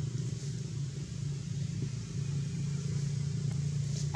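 A steady low engine hum at an even level.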